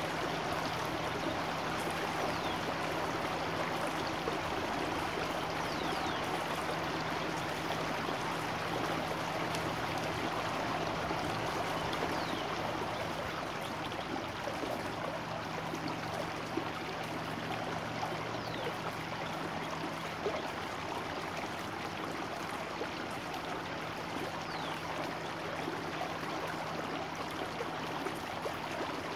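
Small woodland stream running high after heavy rain, rushing and burbling over a submerged log in a steady wash of water noise.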